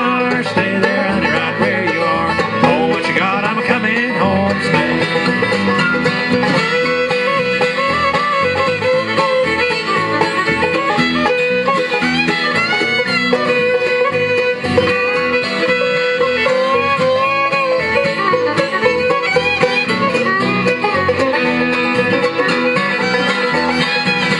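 Bluegrass band playing an instrumental break, with fiddle, banjo, mandolin and acoustic guitar together at a steady, loud level and no singing.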